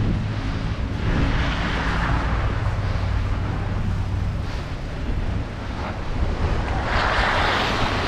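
Wind buffeting an action camera's microphone as a bicycle is ridden through a snowstorm, a rushing noise that swells about a second in and again near the end, over a steady low hum.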